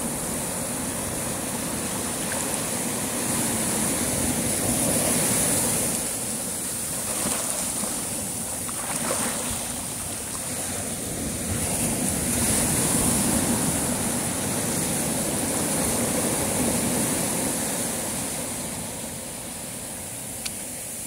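Sea surf washing against the shore, swelling and easing every few seconds over a steady hiss.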